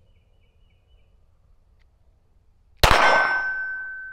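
A single 9mm pistol shot from a SIG P320 Spectre Comp about three seconds in, followed by a clear metallic ringing tone that fades slowly over the next two seconds.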